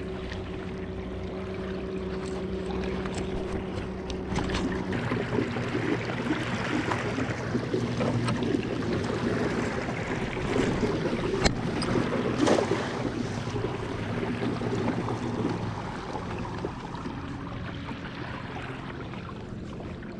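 A boat motor running with a steady hum. Its pitch drops about five seconds in and fades near the end, with water noise and a few sharp knocks and clicks over it.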